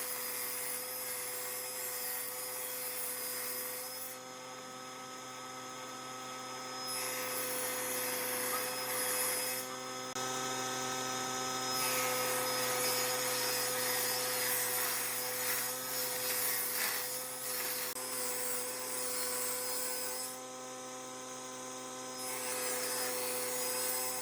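Electric power tool working wood: a steady motor hum runs throughout, with rough rasping stretches as the tool bites into the wood, easing off twice when it lifts away.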